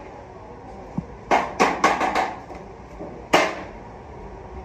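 A hammer striking a stainless steel gas stove frame: four quick blows about a quarter second apart a second in, then one more about two seconds later, each ringing briefly.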